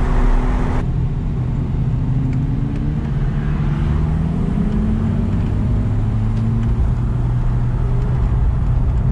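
Porsche 911 GT3's flat-six engine heard from inside the cabin, its pitch climbing gradually for several seconds as the car pulls, then holding steady over road rumble.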